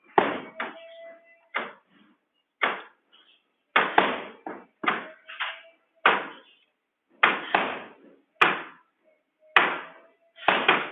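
Hammering: about fifteen sharp blows at an uneven pace of one or two a second, each dying away quickly.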